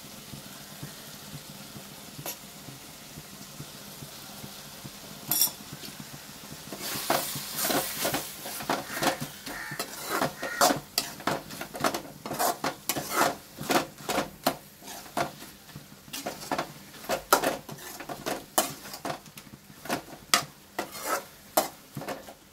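A spoon stirring onions and tomatoes in a metal kadai over a faint steady sizzle. From about seven seconds in it scrapes and clinks against the pan wall, about twice a second.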